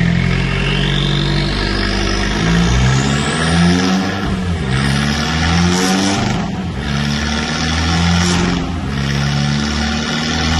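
Remapped, decatted Fiat 500 Abarth's turbocharged 1.4-litre four-cylinder engine under hard acceleration: the revs climb with a rising whine, then drop briefly three times, as at gear changes.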